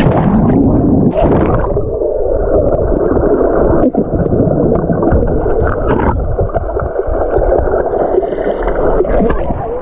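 Muffled, bubbling underwater sound heard through a camera submerged in a swimming pool, as a swimmer blows streams of air bubbles out of his mouth.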